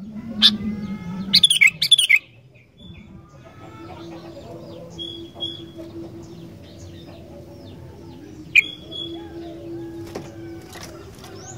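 Sooty-headed bulbul (kutilang) song: loud, bright chirping phrases for about the first two seconds. After a short break comes fainter, busy chirping over a steady low hum, with one sharp note near the end.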